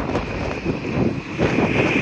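Wind buffeting the microphone in gusts, with a steady high-pitched whine that comes in just after the start and grows louder near the end.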